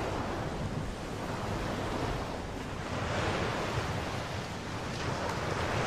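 Ocean waves washing onto a sandy beach, a steady rush of surf that swells twice as waves break.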